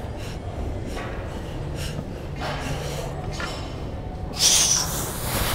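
A weightlifter's forceful breathing during barbell reps: short hard exhales, the loudest a sharp hissing blow about four and a half seconds in.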